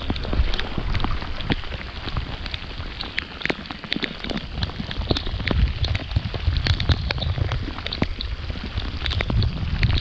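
Heavy rain falling on a creek's surface, a dense hiss full of sharp ticks from drops landing close by. A low rumble swells around the middle and again near the end.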